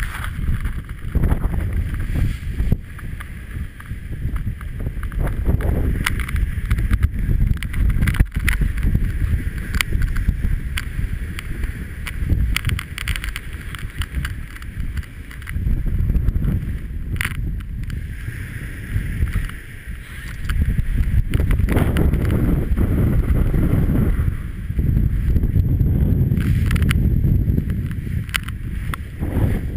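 Wind buffeting the microphone over the rush of water along the hull of a Class 40 racing sailboat under sail, a deep rumble that swells and fades every few seconds, with scattered sharp ticks.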